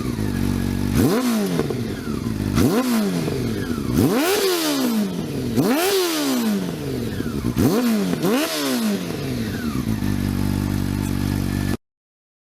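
Honda CB400 inline-four engine through a Screaming Demon aftermarket exhaust, idling and blipped up to high revs about six times, each rev rising quickly and dropping back to idle. It cuts off suddenly near the end.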